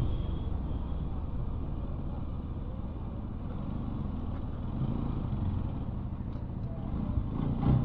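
Bajaj Pulsar NS200's single-cylinder engine running steadily as the motorcycle is ridden, a low rumble mixed with road noise.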